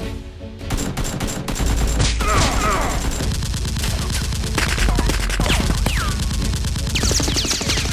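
Rapid, continuous gunfire, many shots in quick succession like an automatic-weapon firefight, with several high falling whistles among the shots. It starts about a second in.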